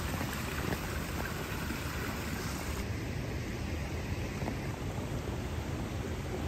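Steady rushing noise with a heavy low rumble and no distinct events; the hiss in the high end drops away about three seconds in.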